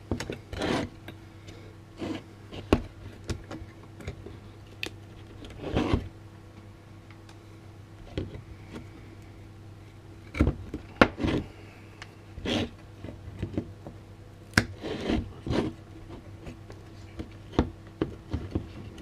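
Diagonal cutters snipping and prying parts off a battery pack's circuit board: irregular sharp clicks, snaps and short scrapes of plastic and board, over a steady low hum.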